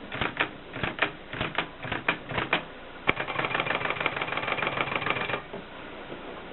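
Adler 7 typewriter in use: about ten separate key strikes over the first two and a half seconds, then a sharp clack and a rapid run of fine clicks lasting about two seconds that stops suddenly.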